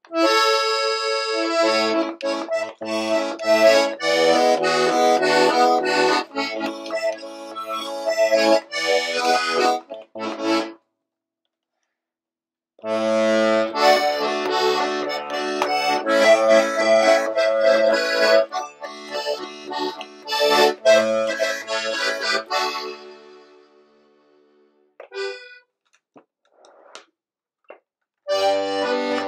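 A circa-1960 Hohner Corona II three-row diatonic button accordion in A/D/G plays a tune with melody, chords and bass. The playing breaks off about ten seconds in and resumes after a two-second silence. It thins to a few scattered notes before starting up again near the end.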